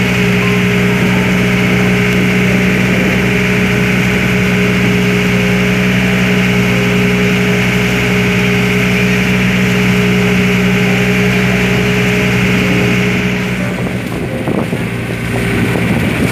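Outrigger boat's engine running steadily under way at cruising speed, a constant hum. A little after 13 seconds in, the sound dips and turns rougher and gustier.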